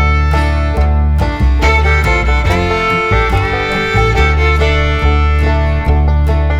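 Background music: a fiddle playing over guitar with a steady bass, in a bluegrass style.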